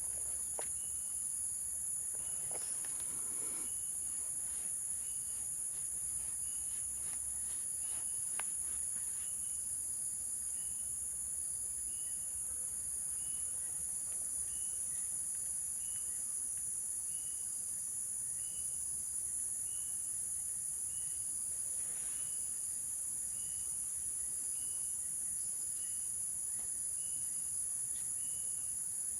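Steady, very high-pitched chorus of insects such as crickets, droning without a break, with a short chirp repeating about once a second over it and a few faint clicks in the first several seconds.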